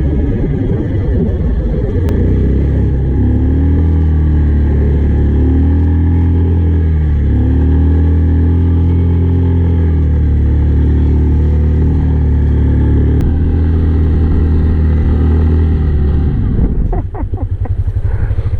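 Yamaha Kodiak ATV engine running under load through snow, its pitch rising and falling with the throttle. About 16 seconds in, the engine note drops off sharply and a few short ticks follow.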